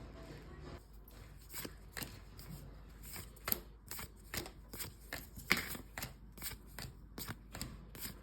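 Trading cards being flipped through and handled: a run of quick, irregular card clicks and slides, several a second, with two sharper snaps partway through.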